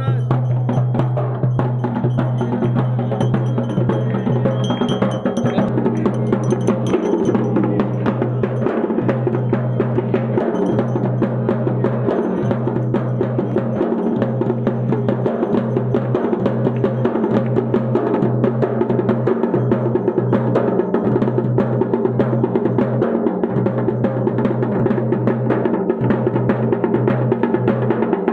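Drums beating fast and steadily with music, over a low droning tone that drops out briefly every second or two.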